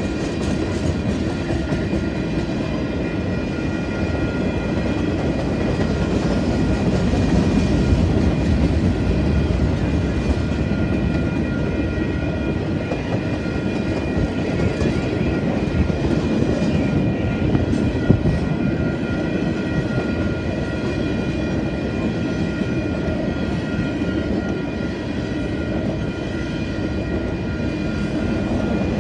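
Freight train cars rolling steadily past at a level crossing: a continuous rumble and clatter of steel wheels on the rails, with steady high ringing tones over it. There is one sharp knock about eighteen seconds in.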